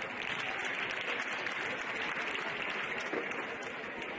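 Audience applauding, a dense steady clapping that swells early and eases off toward the end.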